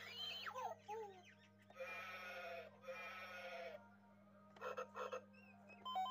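A cat meowing: a short call that rises and falls, then two drawn-out meows, each just under a second long, about two and three seconds in.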